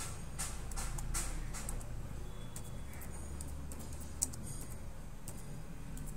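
Computer keyboard being typed on in irregular runs of short key clicks, over a steady low hum.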